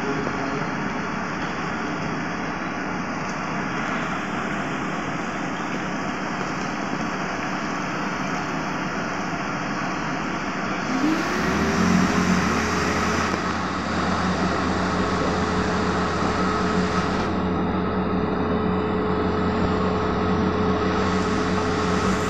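Whirlpool bathtub running, its jets churning and bubbling the water with a steady rush. About eleven seconds in a second motor starts, its hum rising in pitch and then holding steady under the churning.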